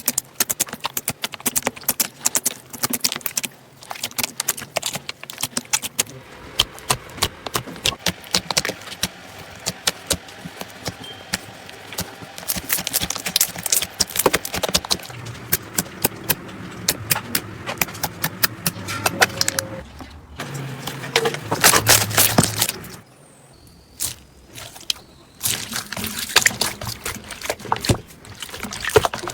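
Slime being squeezed and poked by hand, giving rapid sharp crackling pops and clicks, with a short lull about three quarters of the way through.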